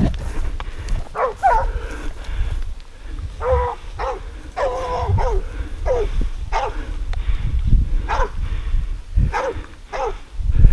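Hunting dogs barking in a dozen or so short, irregular barks over a low rumble: the dogs are baying a wild boar that has stood at bay in the sugarcane.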